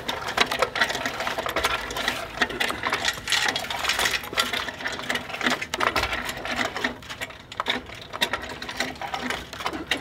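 Lever-and-chain fence stretcher being worked to tighten woven wire fence: a fast run of metal clicks and chain rattle as the handle is pumped.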